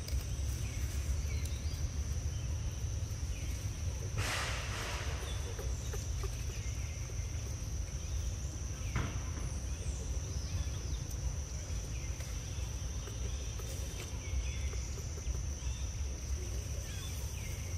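Outdoor ambience: a steady low rumble and a steady high-pitched whine, with faint short chirps scattered throughout. A brief rustling burst comes about four seconds in, and a single click comes about nine seconds in.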